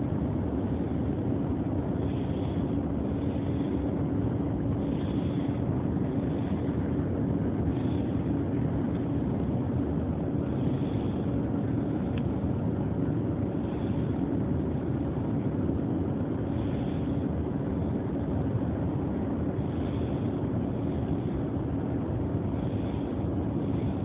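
Continuous, steady rushing noise with a low hum running through it, sounding like distant machinery, of unknown origin.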